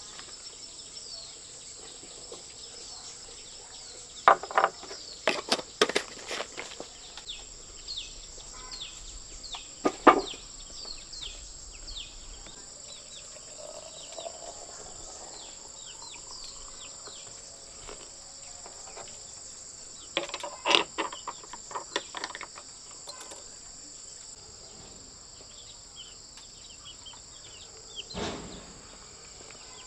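A steady high-pitched insect chorus of cicadas and crickets runs throughout, with many short falling bird chirps over it. Several loud bursts of clattering knocks come near 4 to 6 seconds in, at about 10 seconds, around 20 to 22 seconds and near the end.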